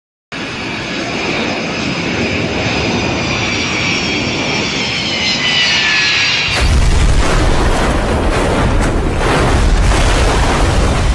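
Aircraft engine running with a high whine that slowly falls in pitch. About six seconds in, it gives way abruptly to a louder, deep rumbling noise that carries on.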